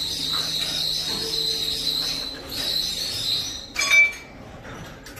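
A steady, shrill high-pitched whine that pulses slightly, stopping about four seconds in at a short, loud clang of metal that rings briefly.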